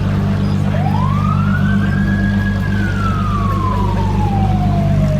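Emergency-vehicle siren in wail mode: one slow rise in pitch about a second in, a brief hold, then a long slow fall. Under it a car engine idles steadily.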